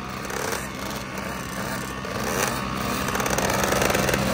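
Small youth motocross bikes' engines idling and blipping together at the starting gate, a dense rattling drone that grows louder toward the end as the riders rev up.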